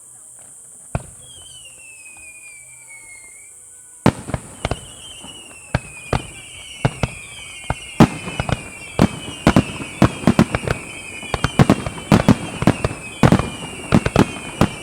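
Aerial fireworks finale barrage. A single bang about a second in is followed by a whistle falling in pitch. From about four seconds on, shell bursts come in quick, ever-denser succession, with many overlapping whistles sliding down in pitch.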